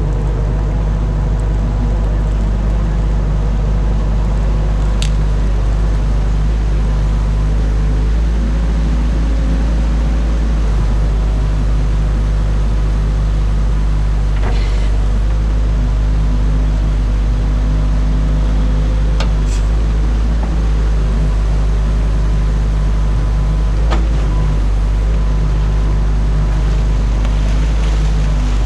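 Excavator engine running steadily under load, heard from the machine itself, with a few sharp metallic clanks spread through.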